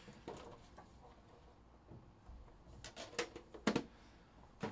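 Hands handling and opening a Panini Immaculate trading-card box: a few light clicks and taps of the box being worked open, the loudest about three and a half seconds in, and another near the end.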